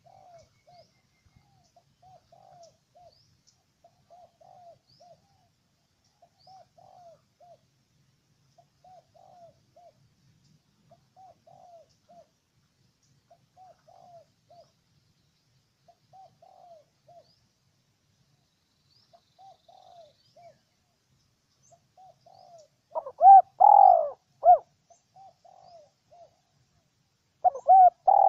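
Spotted dove cooing: a short phrase repeated about every two seconds, faint at first, with much louder cooing about 23 seconds in and again near the end. Faint high chirps of small birds sound above it.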